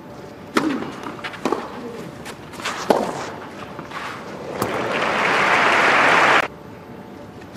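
Tennis racket strikes on the ball during a rally, a few sharp hits roughly a second and a half apart, then crowd applause swells for a couple of seconds and cuts off suddenly.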